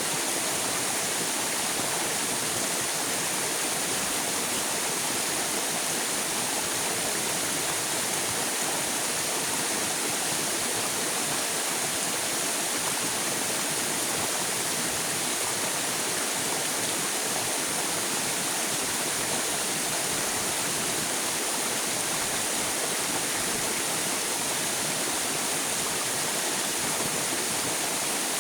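River water rushing steadily over rocks, an even, unbroken rush with no changes.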